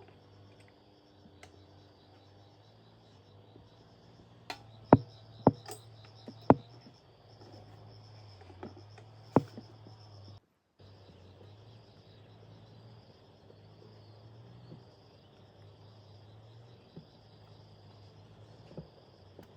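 Insects chirping steadily, with a low hum underneath. A quick run of about five sharp knocks comes around five seconds in, and a single knock follows a few seconds later.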